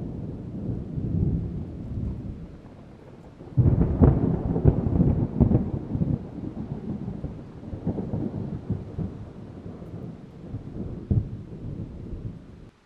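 Thunder: a low rolling rumble, then a sharp crackling clap about three and a half seconds in that rolls on and slowly fades. A smaller crack comes near the end, and then the sound cuts off suddenly.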